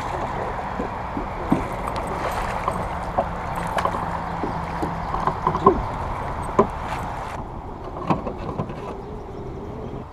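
Water splashing and sloshing around a kayak, with scattered sharp knocks and clicks against the hull, as a freshly hooked largemouth bass is brought in.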